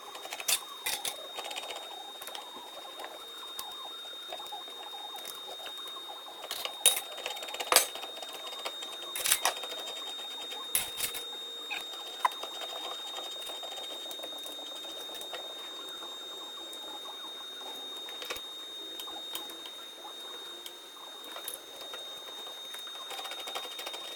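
Sheet steel being folded on a homemade bending machine: scattered metallic clicks and knocks with light squeaks, the loudest clustered about a third of the way in, over a faint steady high tone.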